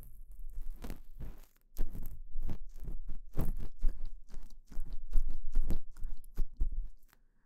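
Ear pick scraping and rubbing inside the ear of a KU100 binaural dummy head, close to the microphones. It comes in quick, irregular scratchy strokes, with a brief pause about a second and a half in, and stops shortly before the end.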